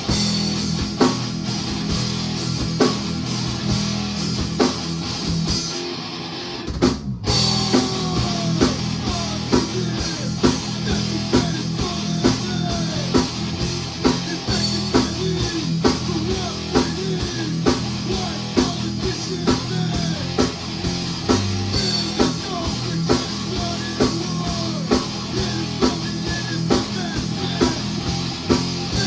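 Heavy metal band playing live, with distorted electric guitars and a drum kit. The band stops dead for a moment about six seconds in, then crashes back in.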